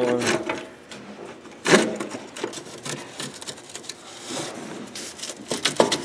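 Hand ratchet clicking in short strokes with metal scraping as a bolt on a tractor's exhaust elbow is worked, and one louder knock a little under two seconds in.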